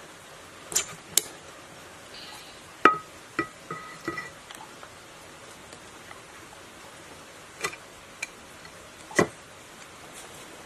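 Sharp metal clinks and knocks from three-phase sewage pump parts being fitted by hand: a seal spring and washer on the steel shaft and the cast end cover set over it. About eight separate clinks, a few ringing briefly, the loudest about three seconds in.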